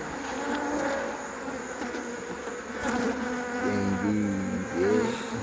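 Many African honeybees buzzing around an opened hive during an inspection: a continuous hum whose pitch wavers as bees fly past.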